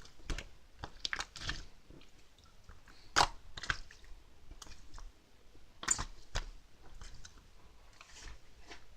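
Slime being squished and kneaded by hand, making a string of sharp pops and crackles; the loudest pops come about three seconds in and just before six seconds.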